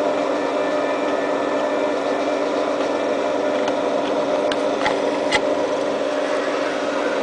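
Steady mechanical hum made of several level tones over a noise bed, with a few faint clicks about four and a half to five and a half seconds in.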